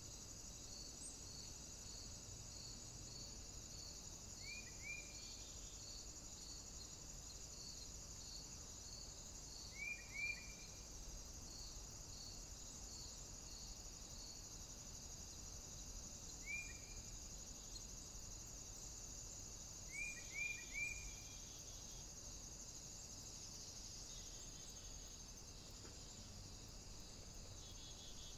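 Short, sharp falling bird call notes, in pairs and a run of three, spaced several seconds apart, over a steady high hiss with a faint rapid ticking at about two to three pulses a second that stops about three-quarters of the way through.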